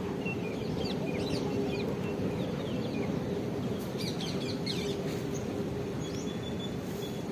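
Birds chirping in many short, quick calls over a steady low hum.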